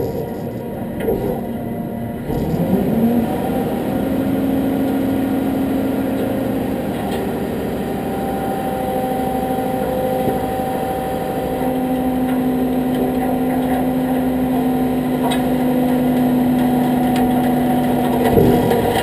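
Truck engine idling steadily, its pitch rising slightly about two seconds in and then holding.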